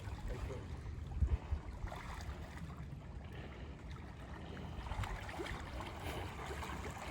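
Low, uneven wind rumble on the microphone, with faint water sounds and a few small ticks about a second in.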